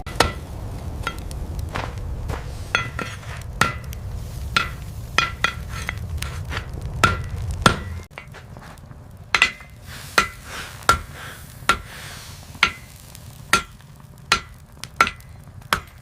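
Hand hammer striking steel on an anvil in single ringing blows, irregular and about one a second. A low rumble sits under the blows and stops about eight seconds in.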